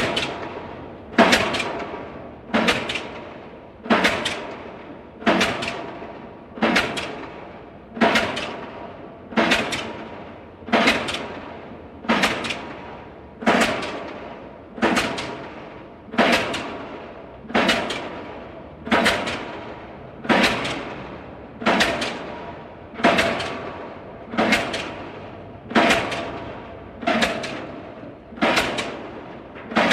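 Pile driver hammer striking a pile in a steady rhythm, about one blow every second and a half, each blow followed by a short metallic ring.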